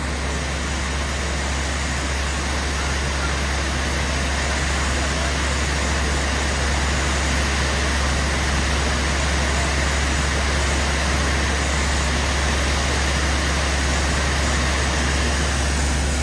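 High-pressure cleaning nozzle spraying water in a steady hiss, over the steady low drone of the sewage truck's engine driving the high-pressure water pump.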